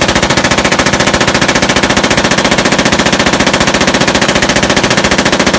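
M249 light machine gun, belt-fed with 5.56 mm rounds, firing fully automatic in one long unbroken burst of rapid, evenly spaced shots.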